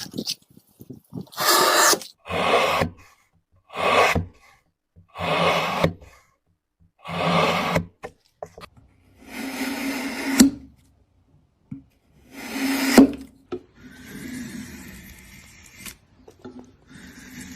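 Hand tool scraping through wood in separate strokes, about seven of them, one every second and a half or two. In the last few seconds this gives way to a fainter, steadier scraping.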